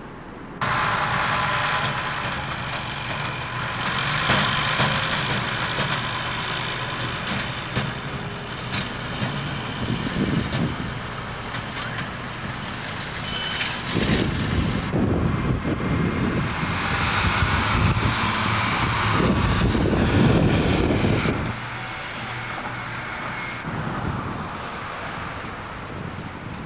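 Diesel engines of construction vehicles working a building site, among them a tractor pulling a trailer, running steadily. The sound changes abruptly at several cuts between shots, with louder low stretches in the middle.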